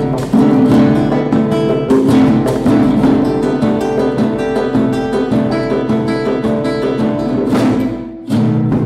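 Classical guitar playing a lively stream of plucked notes and chords, with hand-drum accompaniment. The music dips briefly near the end, then comes back in with a strong accent.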